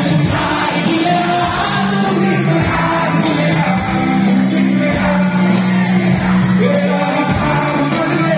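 A live band playing a song in a hall, with singing over keyboards and drums, and the audience shouting and cheering along.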